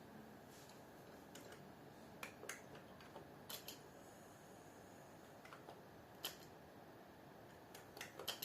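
Faint, slow, irregular clicks of computer keyboard keys being typed, a dozen or so keystrokes with uneven pauses, over quiet background hiss.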